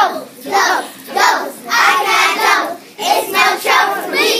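A child singing in short phrases with brief breaks between them.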